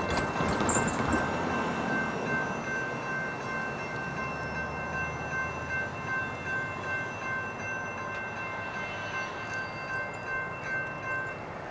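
Railroad grade-crossing warning bell ringing in an even, repeating pattern, stopping shortly before the end. Under it is the faint steady rumble of an approaching train.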